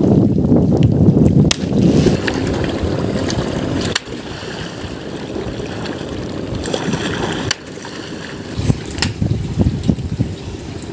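Water splashing and churning as a long bamboo pole is worked hard in the water from a wooden canoe. It is loudest in the first second and a half, then softer, with scattered splashes near the end.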